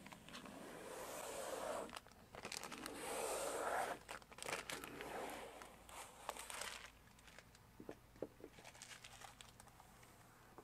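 Paper transfer tape being peeled off a vinyl stripe and crumpled in the hand: rustling, crinkling and tearing in several stretches over the first seven seconds, then only a few faint ticks.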